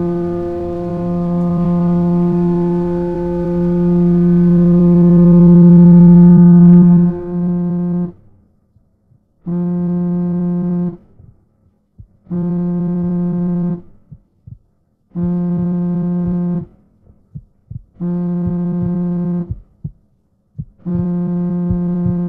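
A low buzzing tone, held and swelling for about eight seconds, then cut off. It returns as five evenly spaced pulses, each about a second and a half long with similar gaps, with faint small knocks between them.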